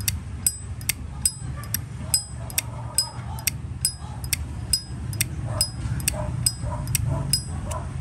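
A 1967 Zippo lighter's hinged lid being flipped open and snapped shut over and over, a sharp metallic click with a short ringing ping about twice a second. This is the old-style Zippo lid sound collectors prize.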